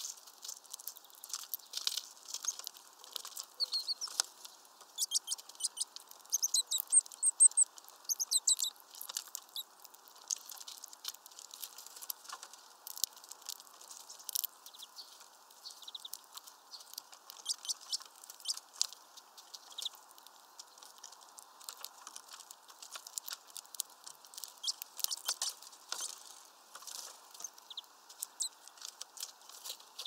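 Rapid irregular clicks and taps of small birds (greenfinches and tits) pecking and cracking seeds at a feeder, with a short run of high chirps about six to nine seconds in.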